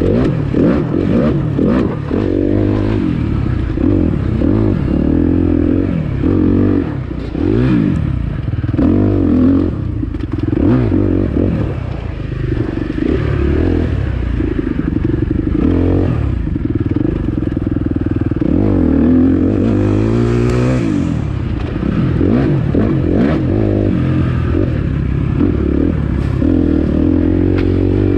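Dirt bike engine revving up and down constantly under the rider's throttle, its pitch rising and falling every second or two, with the bike clattering over bumps in the trail.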